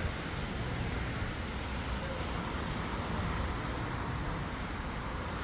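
Steady rushing noise of the fast-flowing River Aire in flood, mixed with the rumble of road traffic.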